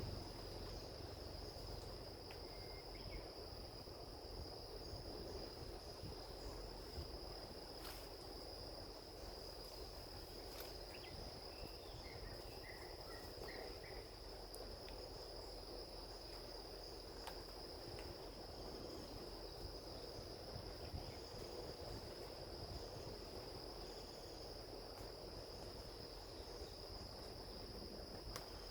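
Insects trilling in one steady, unbroken high tone over a low background rumble, with a few faint short chirps about halfway through.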